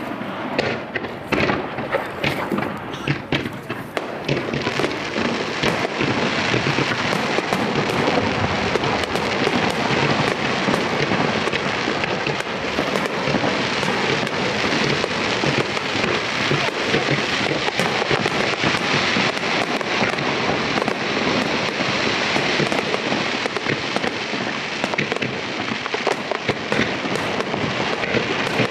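Aerial fireworks shells bursting: a few separate bangs at first, then from about four seconds in a dense, continuous barrage of overlapping bangs and crackles.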